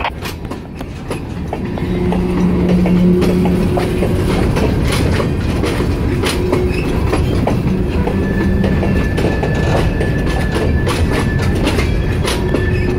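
Covered hopper cars of a long freight train rolling past close by, with the wheels clicking over the rail joints. A thin, steady high wheel squeal comes in about eight seconds in.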